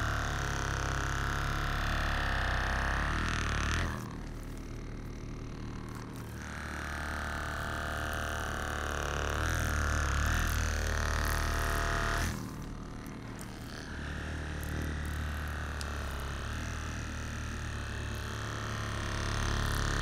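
Handheld electric massager running against the neck muscles, a steady motor hum whose pitch wavers as it presses in. It eases off twice, about 4 s in and again about 12 s in.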